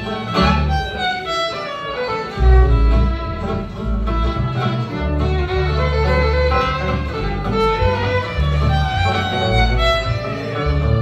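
Live acoustic string trio playing: fiddle bowing the melody over strummed acoustic guitar and plucked upright double bass notes.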